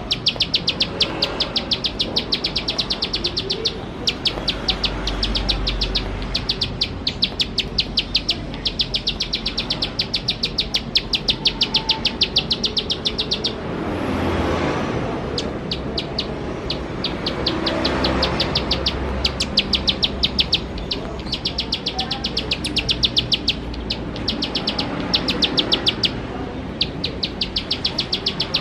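Ciblek sawah, a small prinia, singing its fast, dry ticking song: long runs of rapid identical high notes, about ten a second, broken by short pauses. A hissing noise swells up twice in the middle.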